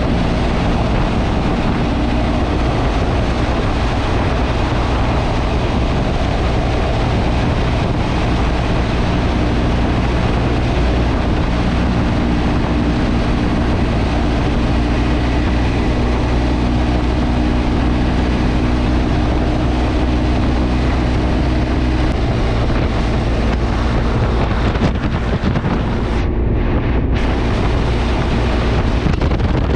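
Motorcycle running at a steady cruise with wind rushing over the microphone; the engine note changes about two-thirds of the way through.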